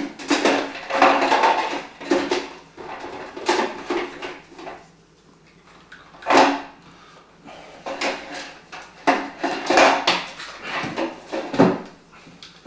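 Irregular handling noise as PC cables and parts are moved about: bursts of clicks, knocks and rustling, with a sharp knock about six seconds in and a short lull just before it.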